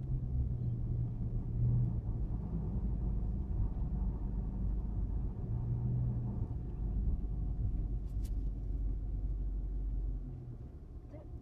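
Chrysler 300 SRT Core turning tight circles at low speed: a low drivetrain rumble with a howling drone that swells and fades as the car goes round, which the owner suspects is the rear differential. The rumble drops away near the end.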